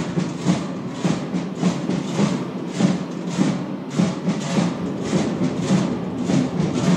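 Many large Trychle cowbells swung in step, clanging in a steady rhythm of about three strokes a second over a continuous low ringing.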